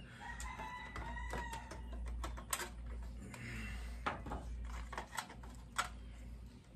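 A rooster crows once, a call of about a second and a half. Then come a few sharp clicks and taps from tools and wire connectors being handled at the kiln's relay panel, the loudest about two and a half and six seconds in.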